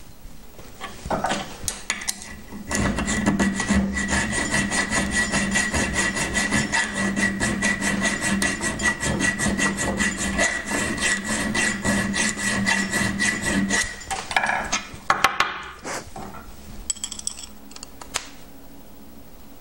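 Small hand file rasping in quick, even back-and-forth strokes, filing a square hole in a metal screw-head disc clamped in a bench vise, with a steady metallic ring under the strokes. The filing starts about three seconds in and stops about fourteen seconds in, followed by a few knocks and light clicks.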